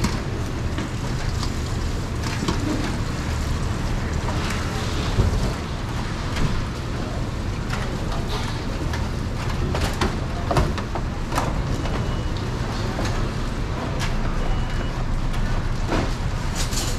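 Steady low background rumble of a busy stall, with scattered knocks and clatter of stainless steel trays being handled and a knife cutting fruit on a board.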